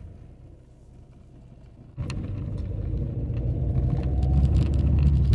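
Car driving, with a low engine and road rumble. It jumps sharply louder about two seconds in and keeps getting louder toward the end.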